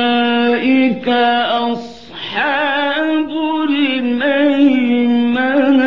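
A man's voice in melodic, chanted Quran recitation: a long held note, then ornamented phrases with a wavering, trilling pitch after a short break about two seconds in, ending sharply near the end.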